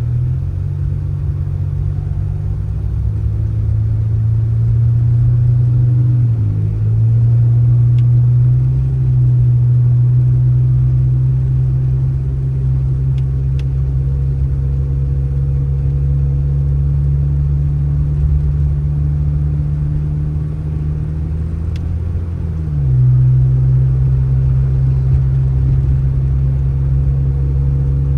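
A motor vehicle's engine running with a steady low drone. Its pitch dips briefly about six seconds in and again about three-quarters of the way through.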